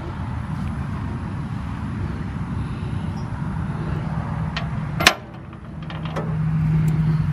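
Steady low rumble of a running vehicle engine, swelling louder over the last couple of seconds, with one sharp click about five seconds in.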